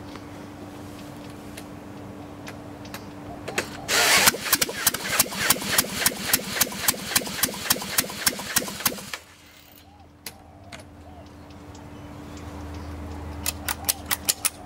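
A VW engine spun over by a large electric drill on its crankshaft for about five seconds: a sudden start, then a regular beat of about four pulses a second, cutting off abruptly when the drill stops, the engine not catching. A few sharp clicks near the end.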